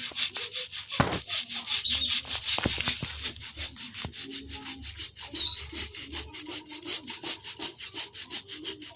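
A small young coconut being grated by hand on a coconut grater: a run of repeated rasping, scraping strokes.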